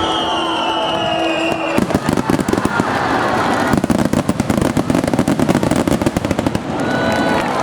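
Aerial fireworks: whistling shells gliding slightly down in pitch for about the first two seconds, then a dense barrage of rapid crackling bursts for about five seconds, with a few short whistles near the end.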